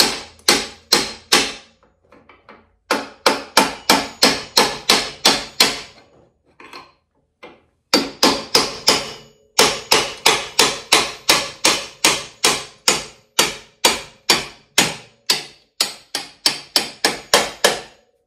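Claw hammer striking a steel punch to drive the jackshaft out of a snow-bike track kit: quick runs of sharp metal blows, about three a second. There are short breaks about two seconds in and again around the middle.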